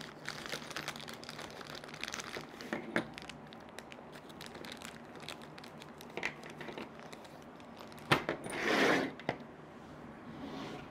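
Plastic hardware bag crinkling and rustling as hands dig bolts and butterfly nuts out of it, with small clicks of the metal parts. A sharp click is followed by a louder burst of rustling about eight seconds in.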